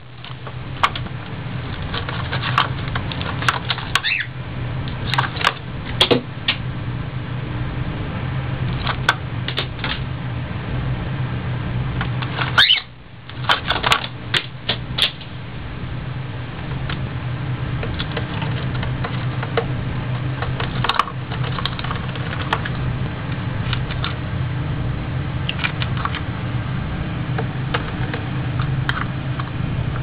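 Cockatiel pecking and tapping its beak on a plastic box: irregular sharp clicks and taps, in places in quick runs, with a few short high squeaks. A steady low hum runs underneath, and it dips briefly just under halfway through.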